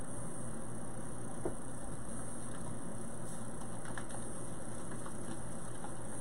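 Steady background hiss and low hum with a few faint, light clicks and taps scattered through it.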